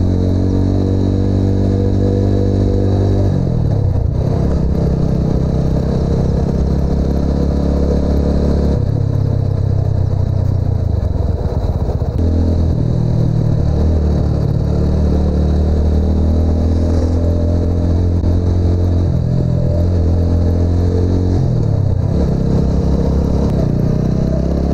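TVS Apache RTR 200's single-cylinder engine and exhaust running under way, its revs dipping and climbing back several times as the rider eases off and accelerates.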